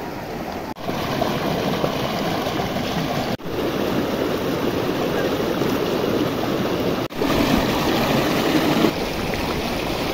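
Shallow, fast-flowing stream rushing steadily over boulders. The sound drops out briefly three times and is a little louder in the last few seconds.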